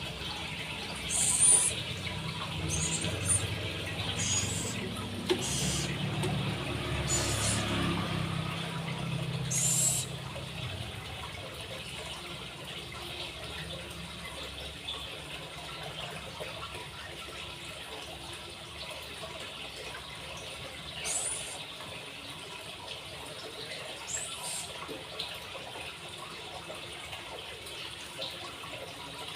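Pet scops owl giving short, high-pitched rising squeaks while it is fed, about half a dozen in the first ten seconds and a couple more later, over a steady hiss.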